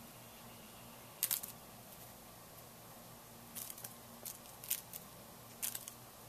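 Short, sharp, crisp clicks and crackles from a wild turkey pecking bread crumbs out of dry grass: one about a second in, then several more close together in the second half.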